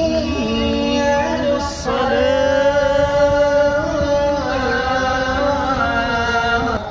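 A solo voice chanting slowly in long, held, ornamented notes. There is a short break a couple of seconds in, and it cuts off abruptly near the end.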